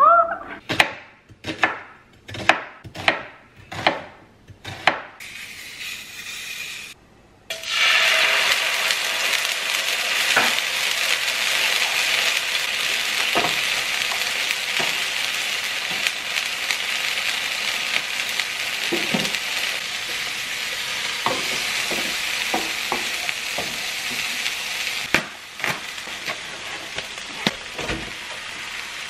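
Sliced onion sizzling in oil in a frying pan, a steady hiss, with light knocks of a utensil stirring the onion. It starts about eight seconds in, after a quick run of about eight sharp clicks, and the sizzling drops in level near the end.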